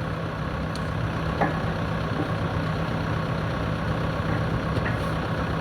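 JCB backhoe loader's diesel engine running steadily at a low, even speed, near idle.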